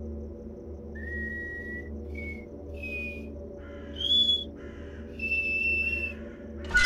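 Horror film score: a low steady drone under a slow tune of single whistled notes, each held briefly and mostly stepping higher in pitch. A sudden loud hit comes right at the end.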